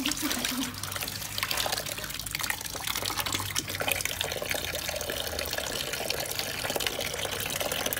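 Tap water pouring in a steady stream into a half-filled plastic bucket, splashing as a hand stirs the water.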